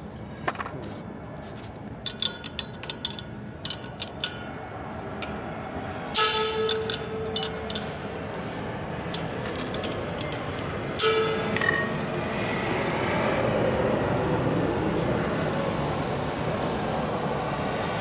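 Light metallic clicks and clinks of hand tools on the Panhead's clutch spring nuts and pressure plate, with two short, bright ringing bursts about 6 and 11 seconds in. A steady rushing noise swells through the second half.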